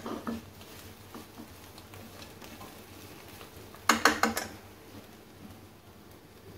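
Spatula stirring and scraping through a thick mixture in a frying pan while flour is browned in it. There is a quick cluster of scrapes and knocks against the pan about four seconds in.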